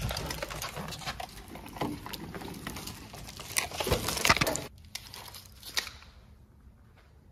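A car's bundled factory wiring harness being pulled out by hand: wires, plastic connectors and loom rustling and crinkling with sharp clicks and knocks, loudest a little before halfway. The noise drops off suddenly about two-thirds of the way in, leaving faint scattered handling sounds.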